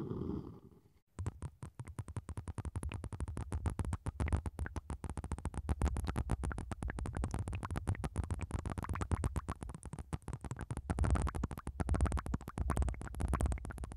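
Syringes of blue liquid worked at the openings of an ASMR microphone, giving a dense, rapid run of crackling clicks. The run starts about a second in and cuts off just before the end.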